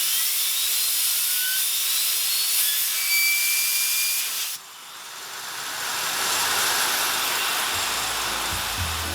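Compressed-air airline blower hissing at a homemade multi-bearing fidget spinner, with whistling tones that glide upward as the spinner speeds up. The air cuts off suddenly about halfway through, leaving a softer whirring noise that swells, and background music comes in near the end.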